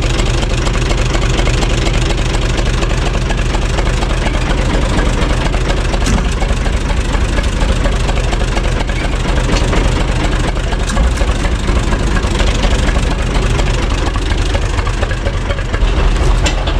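UTB 445 tractor's diesel engine idling steadily.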